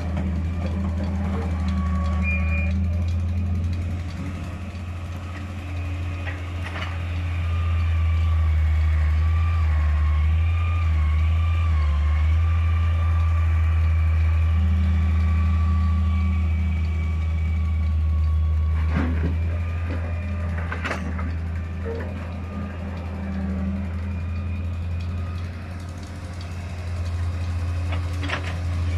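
Diesel engines of a wheeled excavator and a Massey Ferguson 385 tractor running steadily while the excavator loads soil into the tractor's trolley. A thin wavering whine rises and falls through much of it, and a few sharp clunks come in the latter half, as soil and the bucket hit the trolley.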